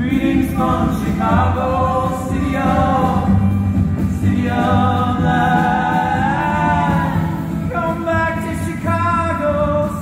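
Live acoustic band playing, with plucked upright bass, acoustic guitar, violin and harmonica, and several voices singing together over it.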